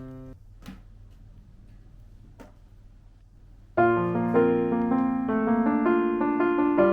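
Background piano music that fades out, leaves a short quiet gap with two faint clicks, then starts again about four seconds in.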